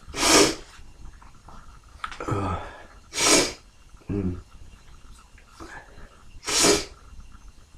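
A man sneezing three times, about three seconds apart, each sneeze a loud sharp burst, with short voiced breaths in between.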